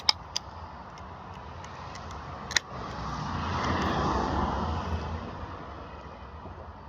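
A vehicle passing by, its noise swelling to a peak about four seconds in and then fading away. A few sharp clicks come near the start and one about two and a half seconds in.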